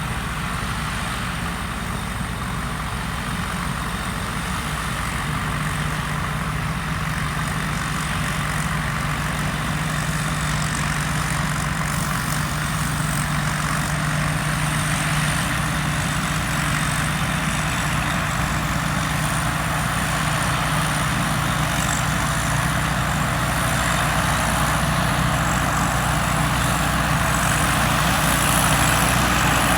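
Combine harvester's diesel engine running steadily, with a constant low hum and a broad mechanical rush, growing gradually louder.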